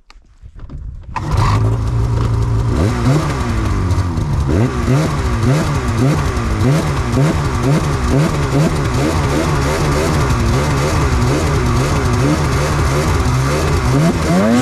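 Snowmobile engine starting about a second in, then revved up and down over and over, its pitch rising and falling about once a second.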